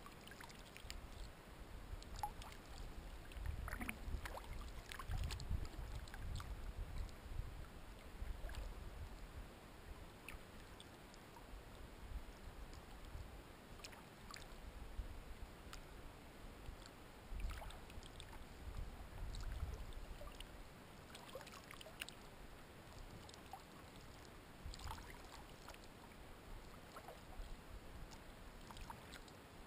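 Kayak paddling on calm water: soft paddle dips with scattered drips and small splashes, over patches of low rumble.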